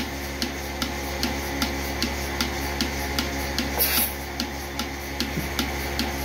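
Portable milking machine running: the pulsator clicks about two and a half times a second over the steady hum of the vacuum pump. About four seconds in there is a short hiss of air as a teat cup is slipped onto a teat.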